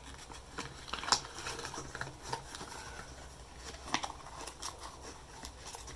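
Small box contents and packaging being handled: scattered light clicks and rustles, the clearest about a second in, a little after two seconds and about four seconds in.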